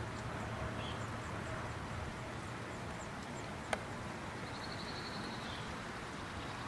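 Faint outdoor ambience: a steady hiss with small high chirps repeating about twice a second, typical of animal or insect calls. A second-long trill comes later on, and a single sharp click a little past halfway.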